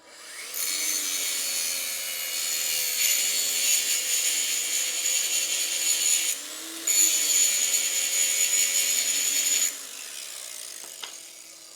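Angle grinder grinding into a steel motorcycle chain link to cut it to length. It runs for about nine seconds with a short break just past halfway, then stops and winds down.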